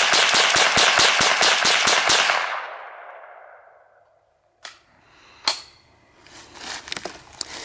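Ruger 10/22 semi-automatic .22 LR rifle fired rapidly, about six shots a second, for the first two seconds until the magazine is emptied; the last shot's echo dies away over about a second. Then two sharp clicks and some light handling noise.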